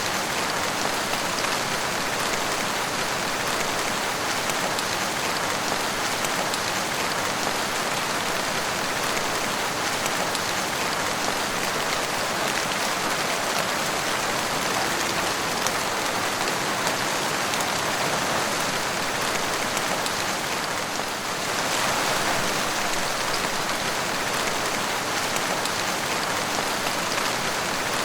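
Heavy monsoon rain falling steadily, a dense even hiss of rain on the ground and surfaces. It dips briefly about three quarters of the way through, then comes back a little louder.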